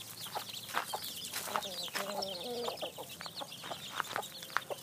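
A flock of free-range chickens clucking and calling while they eat, with many short sharp pecking clicks.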